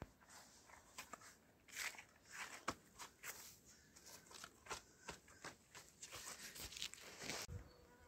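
Gloved hands scraping and scooping loose, crumbly soil: faint, irregular scrapes and rustles of falling earth, a few of them louder.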